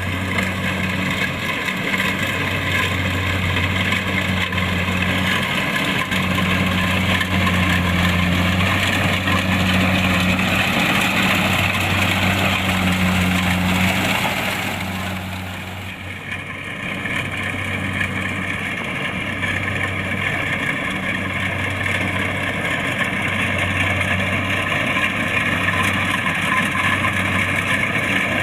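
Kubota DC-70 Plus combine harvester running under load while cutting rice: its diesel engine and threshing machinery make a steady mechanical din. A low hum swells and fades regularly about every two seconds, and the whole sound dips briefly about halfway through.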